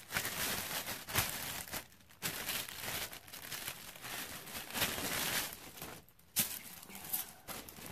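Clear plastic poly bag crinkling and rustling as a handbag is worked out of it. The sound comes in fits and starts, with two short pauses about two seconds in and about six seconds in.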